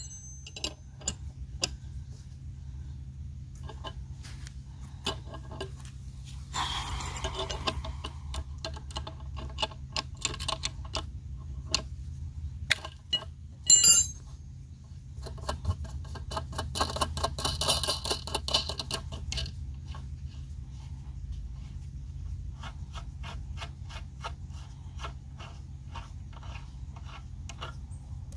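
Ratchet spanner clicking in runs as a nut is tightened onto a masonry anchor bolt in a stone wall, with a sharp metallic clink about halfway through.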